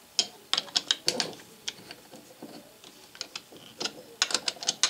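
Small metal clicks and clinks as a steel lathe carriage-stop clamp block is handled and shifted on a steel bar standing in for the lathe bed. They come in a bunch in the first second or so and again near the end.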